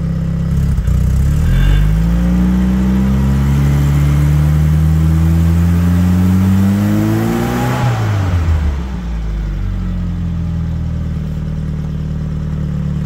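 Classic Mini's A-series four-cylinder engine, heard close to the tailpipe, revved from idle: the pitch climbs steadily for about seven seconds, then drops back to idle. The engine smokes heavily and is reluctant to rev, which the owner puts down to burning oil, perhaps from worn piston rings or valve stem seals.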